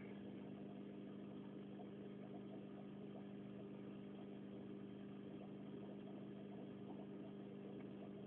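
A faint, steady low mechanical hum of unchanging pitch.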